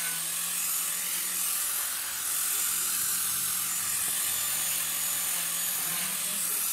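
Electric angle grinder fitted with a sanding disc, running steadily while sanding a wooden surface: a constant motor whine under a hiss of abrasive on wood.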